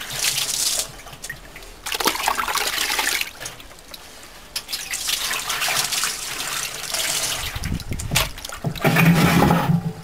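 Water poured from a plastic tub in several separate splashes over a large aluminium pot and running off onto concrete. The loudest and deepest splash comes near the end.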